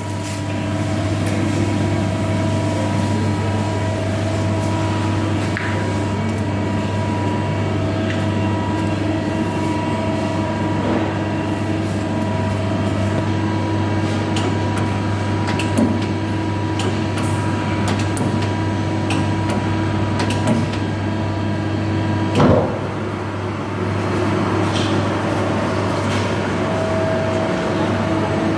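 CNC-retrofitted lathe running: a steady machine hum with several held tones and scattered light clicks, and one louder knock about 22 seconds in.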